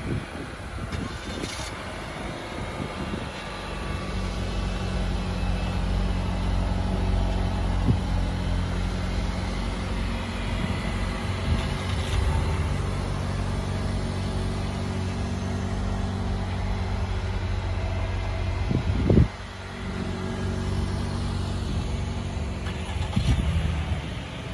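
A motor vehicle engine idling steadily, a low, even hum that grows louder over the first few seconds and then holds. A single sharp knock stands out about three-quarters of the way through.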